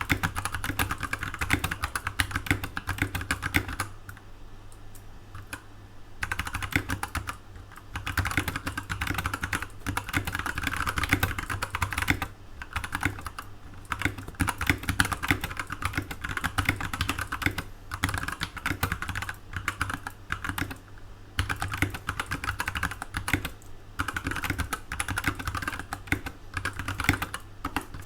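Typing test on a SkyLoong GK64XS mechanical keyboard fitted with Kailh Brown tactile switches and PBT keycaps: fast, continuous key clacking in runs of several seconds, with brief pauses between them.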